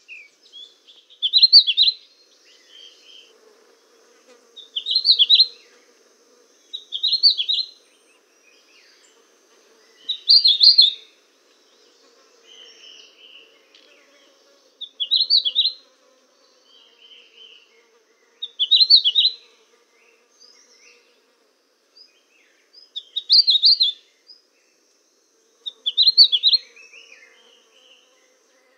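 Small songbirds chirping: a short, high phrase of quick notes repeated about every three seconds, eight times in all, with softer calls in between.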